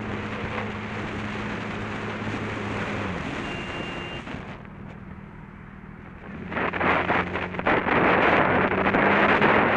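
Motorcycle engine running with a steady note that drops in pitch about three seconds in. From about six and a half seconds, loud wind rush buffets the helmet-mounted microphone as the bike rides on.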